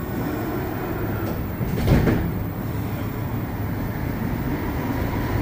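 Interior sound of a Montreal Metro AZUR rubber-tyred train pulling out of a station and picking up speed, a steady running rumble with one brief loud thump about two seconds in.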